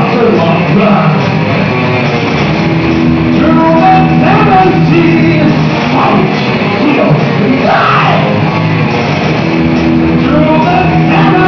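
Heavy metal band rehearsing live without a drummer: electric guitars playing over a keyboard part that stands in for the drums. A singer's voice rises over the band at times.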